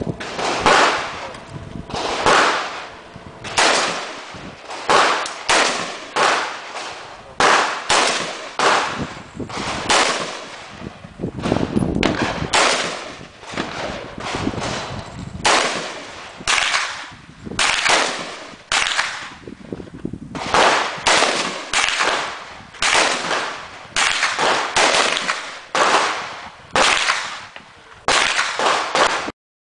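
A long string of semi-automatic rifle shots from an AR-15-style rifle, dozens in all, about one to two a second and unevenly spaced, each sharp crack followed by a short echo.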